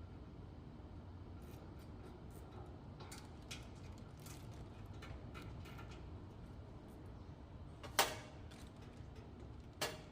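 Scattered light clicks and taps of hands-on mechanical work, with two sharp clicks, one about eight seconds in and one near the end, over a low steady hum.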